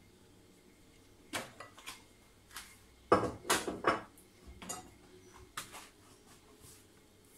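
A wooden spoon knocking and scraping against a clear mixing bowl as dough is scraped out onto a worktop: a run of short clatters, loudest in a cluster about three to four seconds in.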